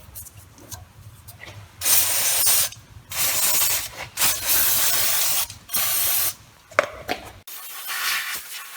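Aerosol brake cleaner sprayed in about four short hissing bursts, each roughly a second long, onto a brake caliper bracket's pad seats to wash off grime and brake-pad friction dust. A quieter, steadier hiss follows near the end.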